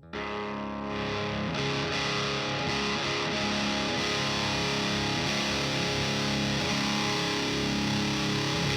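Electric guitar with DiMarzio D-Activator ceramic pickups, played through a Diezel VH4 preamp pedal into an Orange Pedal Baby power amp, tuned a half step down in drop D. Heavily distorted chords start suddenly, build about a second in, then ring on loud and sustained.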